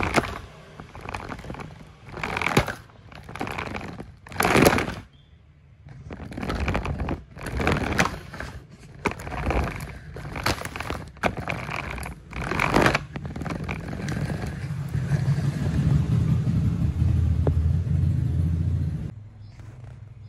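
Plastic toy trucks pushed and knocked about on a carpeted floor: a string of short, irregular scraping and rustling noises. In the second half a steady low hum takes over, then cuts off suddenly near the end.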